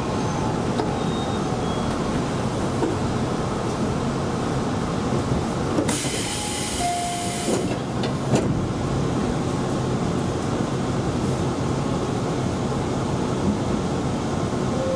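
Electric local train running along the line, a steady rumble of wheels on rail. About six seconds in, a hiss lasting under two seconds rises over it, followed by a single sharp click.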